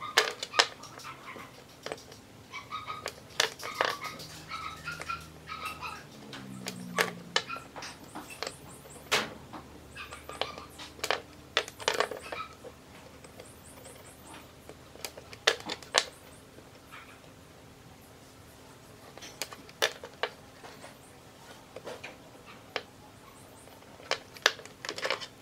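Irregular sharp clicks and taps of metal transistor cases and multimeter test probes being handled and set down on a wooden workbench while the transistors are tested.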